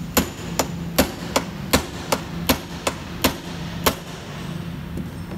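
Hammer tapping a tool against the metal lock ring of a fuel pump module on a plastic fuel tank, turning the ring. About ten sharp strikes, roughly two to three a second, stopping about four seconds in.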